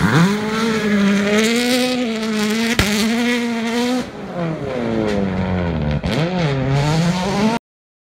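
World Rally Car engines at full throttle on gravel stages, the pitch dropping and climbing again with each gear change and lift, with one sharp crack about three seconds in. The sound changes abruptly about four seconds in as a second pass begins, and cuts off suddenly near the end.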